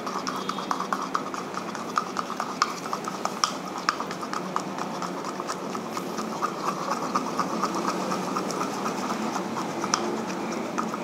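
A stick stirring yellow screen-printing ink in a small plastic cup, tapping and clicking against the cup's wall several times a second in an uneven rhythm, over a steady background hiss.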